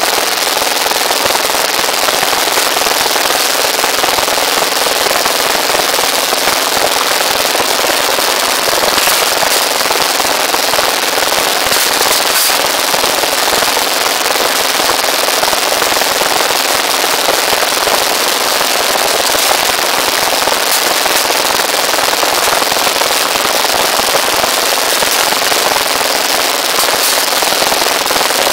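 Small engine running steadily and loudly beside a rebar bending machine, with a few brief light clinks of steel rebar.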